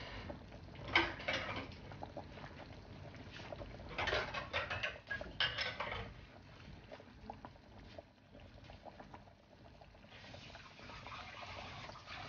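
Fish curry boiling in a pan, its bubbles popping in a dense crackle, with louder flurries about a second in and again from about four to six seconds in.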